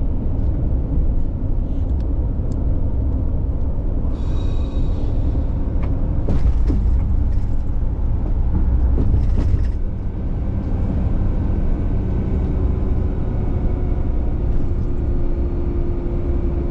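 Steady low rumble of engine and road noise inside a camper van's cab while driving at speed.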